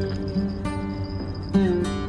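Background music played on plucked acoustic guitar, a new note or chord struck about every half second.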